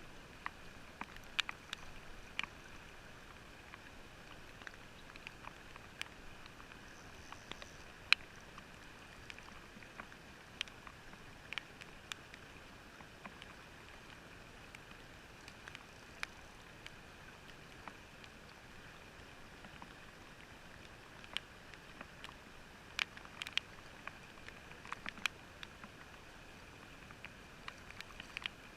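Scattered sharp clicks and taps at irregular intervals over a faint steady hiss, all muffled by a watertight camera housing.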